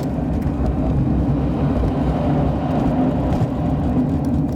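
Car on the move: a steady rumble of engine and road noise.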